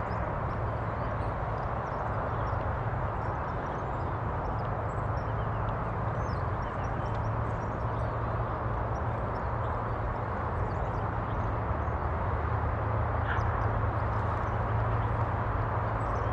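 Steady outdoor background noise: a continuous low rumble with a faint steady hum, and scattered faint bird chirps.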